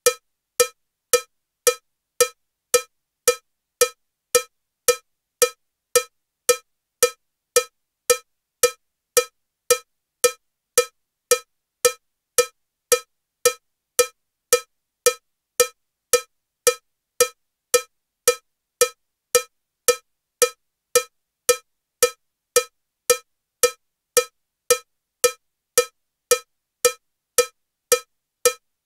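Metronome ticking at 112 beats per minute with a cowbell sound: short, even, pitched clanks just under two a second, every beat the same strength.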